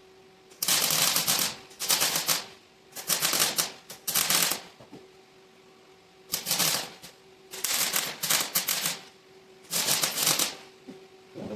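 Welder laying short plug welds on a truck frame: about eight bursts of crackling, each under a second, with short pauses and a steady hum between them.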